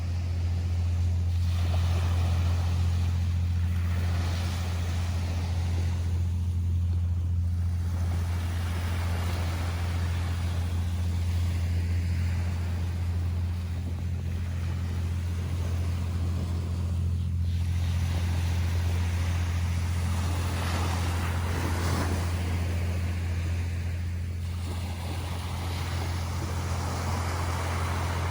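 Ocean waves washing onto a beach, the surf hiss swelling and fading every few seconds, over a loud steady low hum.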